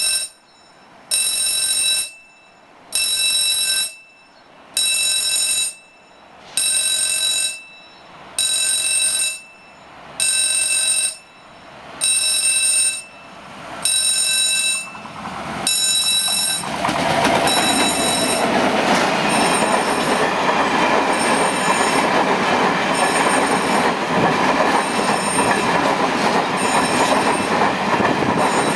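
A level-crossing warning bell rings in slow, even strokes, about one every two seconds. About 16 seconds in, a freight train hauled by a Vossloh Euro 4000 diesel locomotive passes close by, and its empty stake wagons roll past with loud, steady wheel-and-rail noise while the bell keeps ringing faintly.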